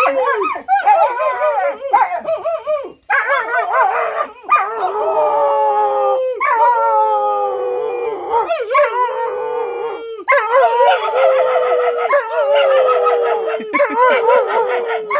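A man howling and a black-and-tan dog howling along with him: a string of long, wavering howls that overlap at times, broken by a few short pauses.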